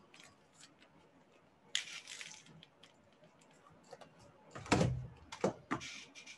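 Handling noise from a VR headset being put on: scattered light clicks and a rustle, then a louder dull thump with a couple of sharp clicks about three quarters of the way through.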